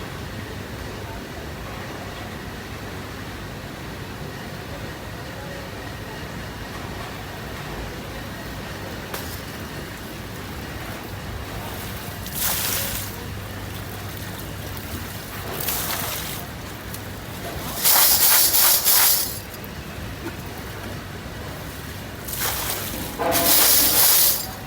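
Steady machinery hum in a factory, broken by five loud bursts of hissing, the longest and loudest lasting about a second and a half.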